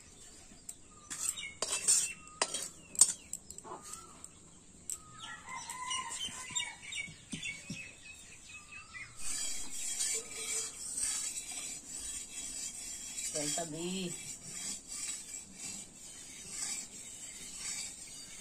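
A metal cooking utensil clinking sharply against a pot several times in the first few seconds, followed by birds chirping. A steady high hiss runs underneath and grows stronger about halfway through, and a short call is heard near the end.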